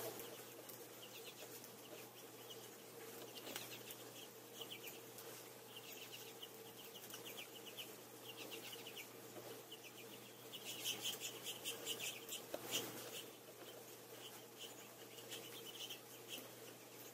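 House finches and goldfinches chirping and twittering at a feeder in short, rapid runs of high notes, with a busier, louder spell of chatter about eleven to thirteen seconds in. A faint steady hum runs underneath.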